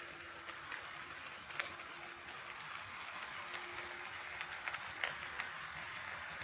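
HO-scale model train running on sectional track: a steady hiss of running noise with irregular sharp clicks as the wheels pass over rail joints.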